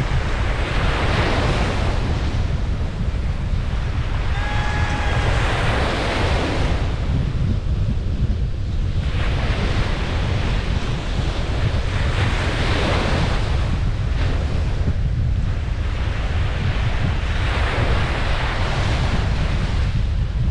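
Ocean waves breaking and washing up a beach in repeated surges every few seconds, over a steady low rumble of wind on the microphone. A brief high pitched call is heard about four and a half seconds in.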